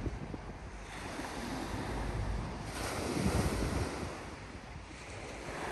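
Sea waves washing onto the shore, with wind buffeting the microphone; a wave swells and breaks about three seconds in.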